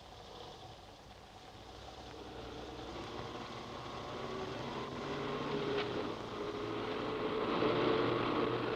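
Car engine running, growing steadily louder.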